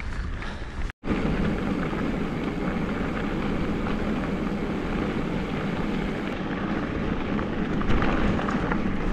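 Steady rushing of wind on the microphone mixed with mountain-bike tyres rolling over a gravel road on a descent, with faint small ticks and rattles throughout. There is a brief dropout about a second in.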